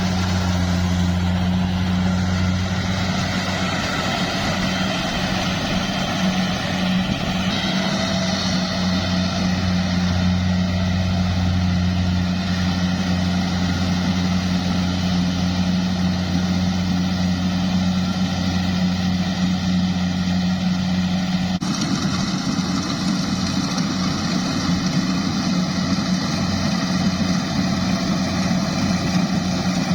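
Diesel engine of a farm machine, a rice harvester or tractor, running steadily at a constant speed with a low hum, over a clatter of working machinery. The higher machinery noise changes abruptly about two-thirds of the way through.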